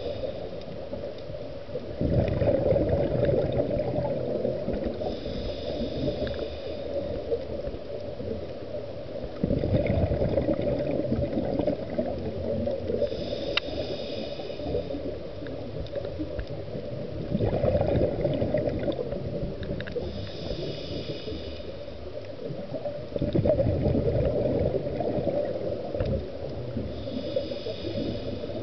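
Scuba diver breathing through a regulator underwater: a gurgling rush of exhaled bubbles followed by a hissing inhale through the demand valve, four breaths about seven to eight seconds apart.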